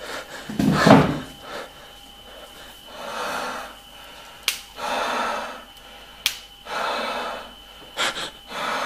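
A person breathing heavily: a sharp intake of breath about a second in, then slow, noisy breaths roughly every two seconds. Two short clicks come between the breaths.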